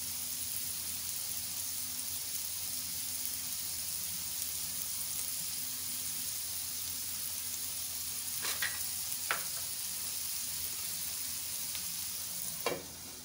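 Minced beef sizzling in oil on a tawa, a steady frying hiss. A few light knocks come about two-thirds of the way through and again near the end, after which the sizzle is quieter.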